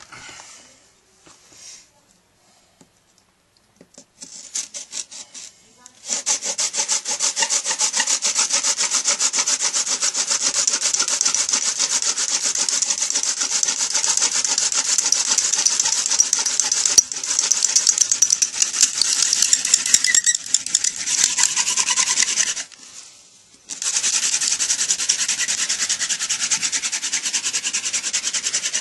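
Hand-drill fire-making: a wooden spindle tipped with a pineapple-top plug, spun rapidly back and forth between the palms in the socket of a trumpet creeper hearth board, making a steady fast rubbing as it drills for an ember. The rubbing starts about six seconds in, stops briefly a little after two-thirds of the way through, then resumes.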